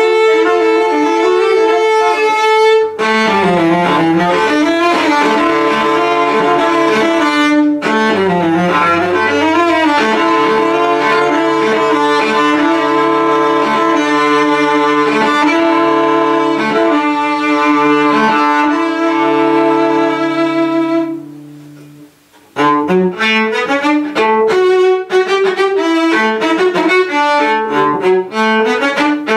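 Solo cello played with the bow: long sustained notes, some with a lower note held beneath them, dying away about 21 seconds in. After a short pause, a faster passage of quick, separately bowed notes begins.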